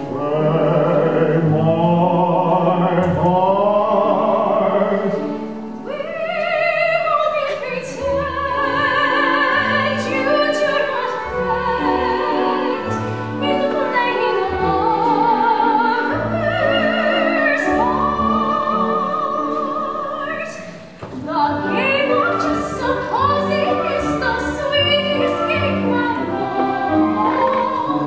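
A soprano singing a musical-theatre ballad in a full, operatic style with vibrato, over orchestral accompaniment. There is a short pause between phrases about three-quarters of the way through.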